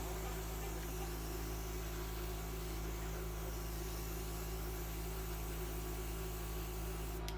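Steady mechanical hum with an even hiss over it, like a small motor running.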